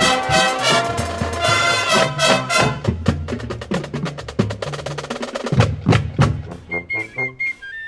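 High school marching band playing: full brass chords for the first few seconds, giving way to drums and percussion with sharp clicking strokes, heavy low drum hits around six seconds in, and a few high held notes near the end as the texture thins.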